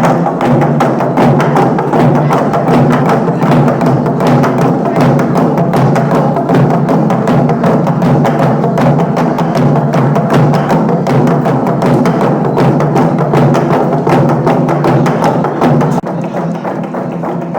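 Naga log drum, a huge hollowed tree-trunk drum, beaten with a fast, dense run of wooden strokes that keep up a steady driving rhythm. It gets somewhat quieter near the end.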